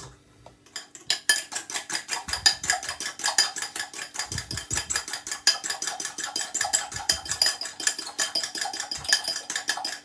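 A metal fork rapidly clicking and scraping against a glass bowl as ripe banana is mashed in it, starting about a second in and keeping up a fast, even rhythm.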